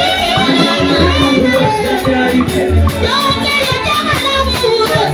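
A woman singing through a microphone over amplified music with a steady beat and a deep, pulsing bass.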